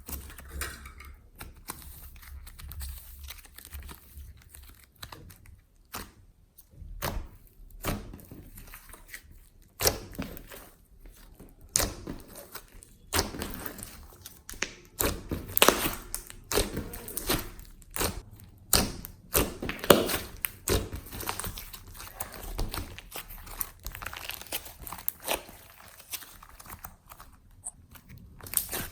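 Glossy slime with clay mixed in being kneaded and stretched by hand, giving irregular sticky clicks, pops and crackles that grow busier and louder through the middle.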